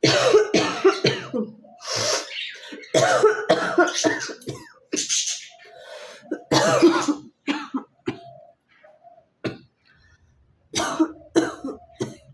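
A woman coughing repeatedly in a series of short fits, with brief pauses between them and a longer quiet gap about nine seconds in before a final cluster of coughs.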